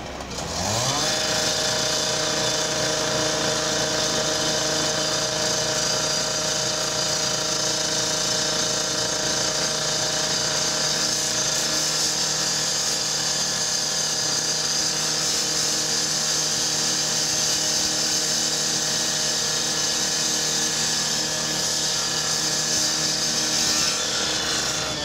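Gas-powered rotary saw revving up about a second in, then running at a steady high whine as its blade cuts through the garbage truck's steel body.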